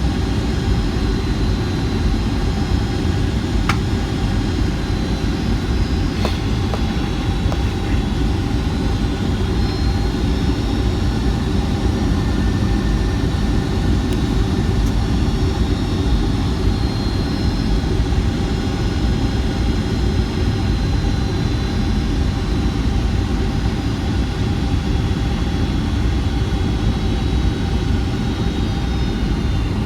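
Steady cabin noise inside a Boeing 757-200 jet airliner on approach: an even, loud low rumble of engines and airflow, with faint thin high tones drifting above it.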